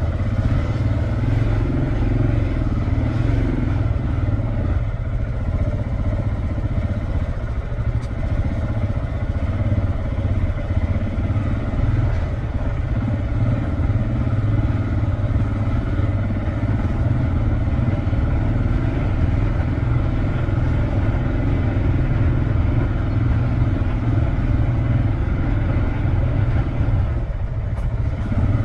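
Motorcycle engine running steadily while riding, with small rises and falls in speed.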